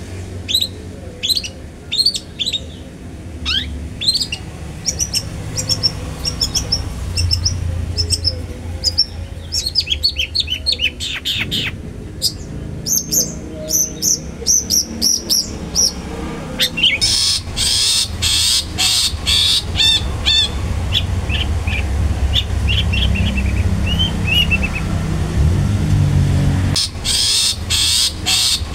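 Long-tailed shrike (cendet) calling: runs of short, sharp, high chirping notes, then harsh rasping bursts about halfway through and again near the end.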